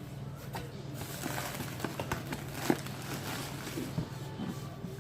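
Scattered light knocks, clicks and rustles of a cardboard box and its packaging being handled, over a steady low hum.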